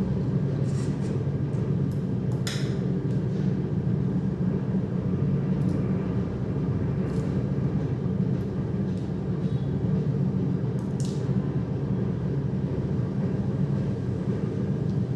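A steady low hum throughout, with a few short, sharp clicks scattered through it as small phone parts are handled and pressed into place.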